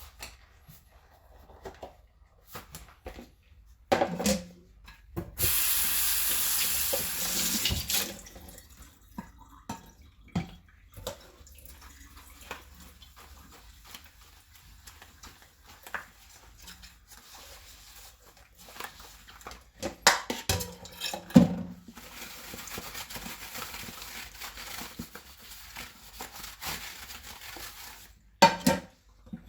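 Dishes being washed by hand at a kitchen sink: plates and bowls clink and knock against each other and the sink, with the tap running hard for a couple of seconds and later a softer stretch of water and sponge scrubbing.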